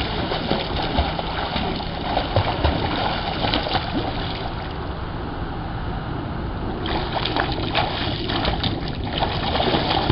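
Swimming-pool water splashing steadily from a swimmer's flutter kick and freestyle arm strokes.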